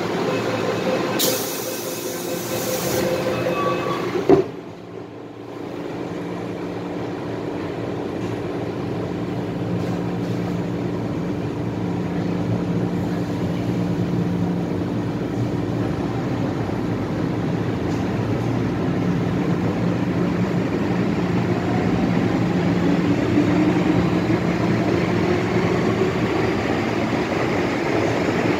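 MTR Island Line M-Train departing a station. A door-closing warning sounds about a second in, and the doors shut with a thud about four seconds in. Then the traction motors start with a steady whine that grows louder, and from about two-thirds of the way through a tone climbs in pitch as the train gathers speed.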